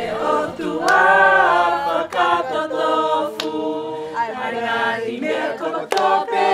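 A group of voices singing together unaccompanied, a Polynesian group song sung for a seated dance with hand movements, with a few sharp percussive hits about a second, three and a half seconds and six seconds in.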